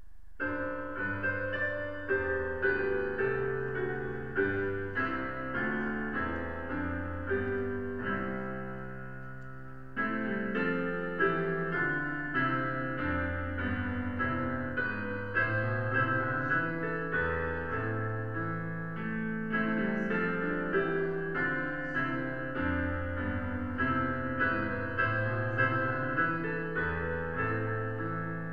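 Solo piano music played on a keyboard: slow chords over sustained bass notes. About nine seconds in, the playing fades, then comes back at full strength.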